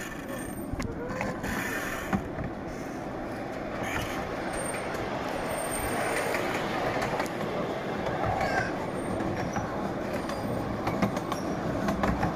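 Ride-on miniature railway train rolling along the track: a steady rumble of the cars' wheels on the rails that slowly grows louder, with a quick run of clicks near the end.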